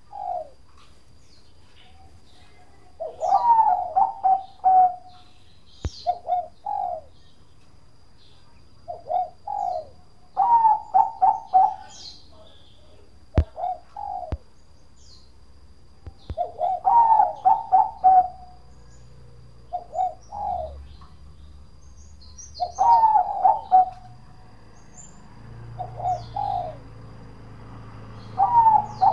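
Bangkok-bred zebra dove (perkutut) singing: phrases of quick, staccato cooing notes, a short phrase followed by a longer one, repeated every few seconds.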